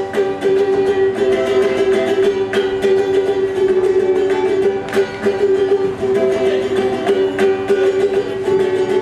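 Ukulele strummed in a steady, quick rhythm, its chords ringing on, with no singing.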